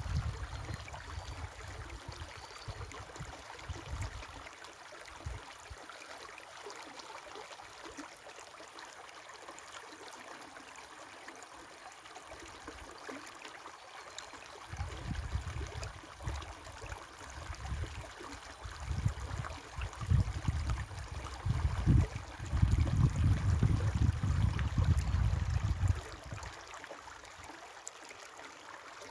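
A river flowing, with a steady rushing and trickling of water. A low rumble swells in and out over it, strongest in the second half, and drops away a few seconds before the end.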